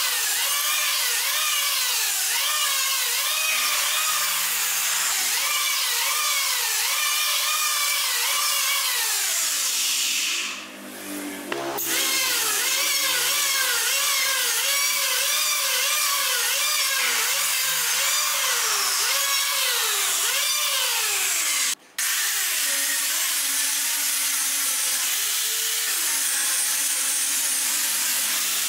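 Electric hand planer shaving a round wooden block: its motor whine dips in pitch and recovers with each pass, about once a second, easing off briefly about ten seconds in. Just over twenty seconds in it cuts off abruptly and an angle grinder with a sanding disc takes over, running steadily as it sands the wood.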